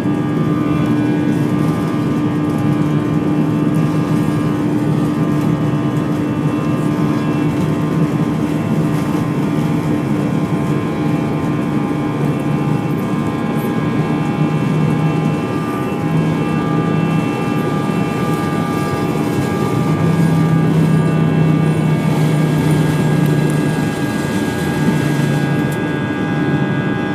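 Airbus A320 jet engines heard from inside the passenger cabin, running steadily. A constant rush carries a low hum and several fixed whining tones, growing slightly louder about twenty seconds in.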